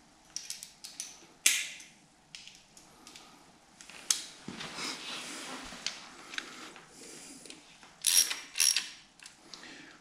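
Hand socket ratchet clicking in short runs as a bolt is done up on the timing-chain end of an engine block, mixed with clinks and knocks of the tools. A sharp knock comes about a second and a half in.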